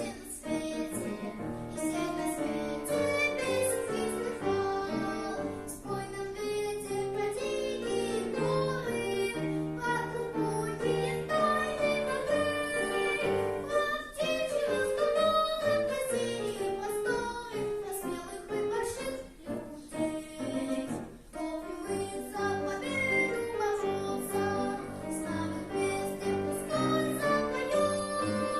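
A nine-year-old boy singing in a trained academic (classical) style, with instrumental accompaniment under the melody.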